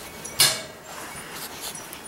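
Five-week-old yellow Labrador retriever puppies playing and tussling over plush toys, with one short, sharp, loud sound about half a second in and small scuffling noises after it.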